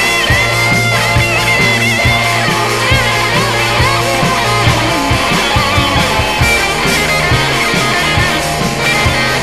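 Rock song playing: a lead electric guitar line of bent, wavering high notes over bass and drums.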